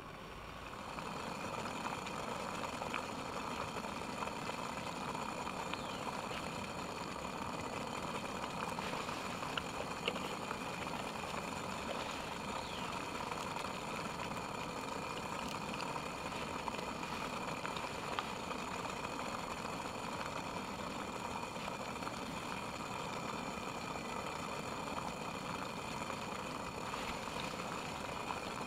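A steady rushing roar that swells slightly in the first second and then holds even, with a few faint light clicks and scrapes of a knife spreading cheese onto bread.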